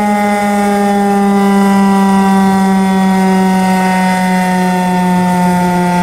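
Federal Signal STH-10 outdoor warning siren sounding its alert tone, very loud: a single steady pitch with many overtones that sinks slowly over the few seconds.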